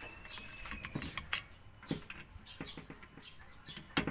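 Small birds chirping repeatedly in short, falling high notes, with a few sharp metallic clicks from a wrench and socket on the engine head.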